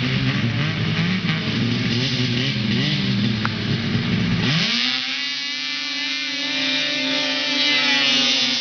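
Modified Arctic Cat snowmobiles' two-stroke engines running unevenly at the drag start line, then revving hard about four and a half seconds in as they launch. The pitch climbs fast and holds high while the sleds accelerate, growing louder as one passes close near the end.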